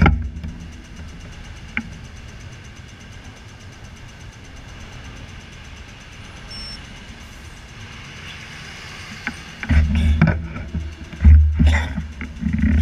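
Cars driving past on a city street: a steady traffic hum, then louder low rumbles near the end as cars pass close by.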